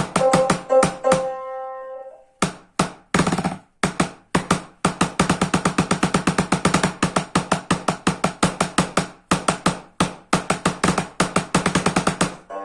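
Percussion music from a noise-instrument ensemble. A short phrase of pitched notes is followed, from about two seconds in, by a fast, even run of sharp wooden-sounding strikes, several a second, that stops near the end.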